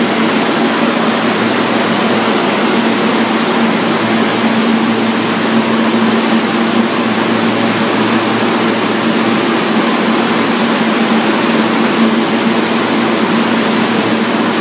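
R160 subway train standing at the platform with its doors open, its on-board ventilation and electrical equipment giving a steady hum over a constant rushing noise.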